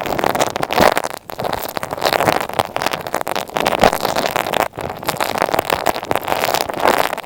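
Close, dense crackling and scratching from material rubbed directly on an earphone microphone, in uneven strokes with a couple of brief pauses.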